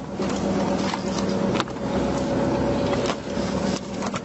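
Fishing boat's engine running with a steady hum, with scattered clicks and knocks as crabs are handled and sorted by hand.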